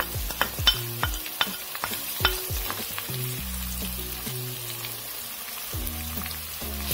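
Grated onion, tomato and eggplant sizzling in hot oil in a pot while a wooden spoon stirs through them, with a run of light knocks and scrapes of the spoon in the first half.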